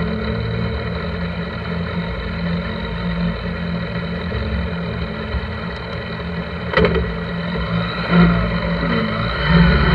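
1983 Honda GL1100 Gold Wing's flat-four engine idling steadily with the bike at a standstill. A sharp knock comes about seven seconds in, and a few louder, uneven sounds follow near the end.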